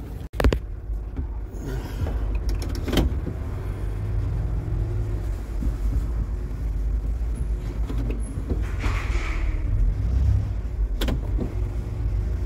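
Car in motion heard from inside the cabin: a steady low engine and road rumble, with a few sharp knocks and rattles.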